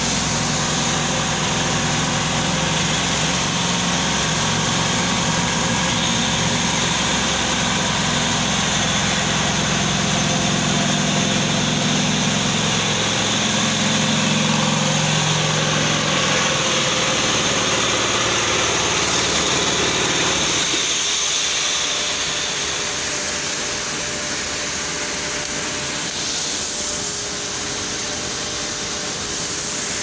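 Blast furnace taphole drilling machine running steadily with a low mechanical hum. About two-thirds of the way through the hum drops away, leaving a steady hissing rush as sparks and hot metal spray from the opened taphole.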